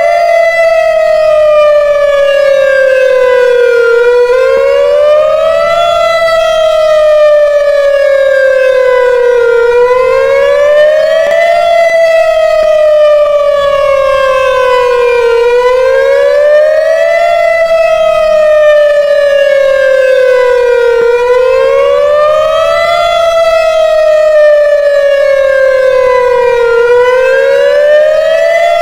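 Whelen WPS-2910 electronic outdoor warning siren sounding its wail tone for a routine test: a loud tone whose pitch climbs quickly and then falls more slowly, repeating about every six seconds.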